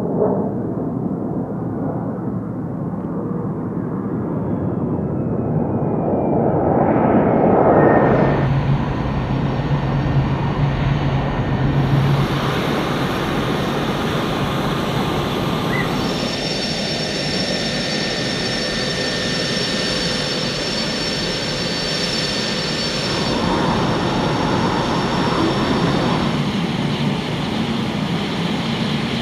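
Jet engine noise from a Saab JAS 39 Gripen's Volvo RM12 turbofan on the airfield, heard across several clips, so the sound changes abruptly every few seconds. A high, steady whine runs through the middle part.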